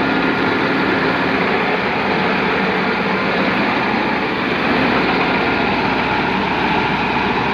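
Rice harvester running steadily, a loud, even mechanical drone.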